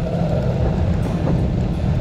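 Wind buffeting the microphone of a camera moving at riding speed: a steady low rumble with no distinct events.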